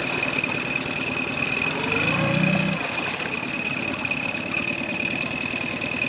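Mercury 15 EFI four-stroke kicker outboard running steadily at low revs with a fast, even firing beat. A short, louder rising sound comes about two seconds in.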